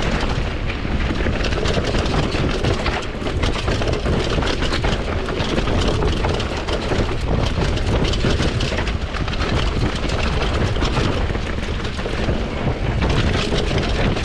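Wind buffeting the action-camera microphone over the rumble of a downhill mountain bike's tyres on a dirt and rock trail, with steady rattles and knocks from the Commencal Supreme DH's chain and frame during a fast descent.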